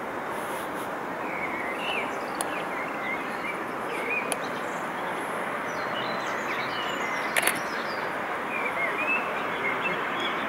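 Birds chirping repeatedly over a steady outdoor noise, with a sharp double click about seven seconds in.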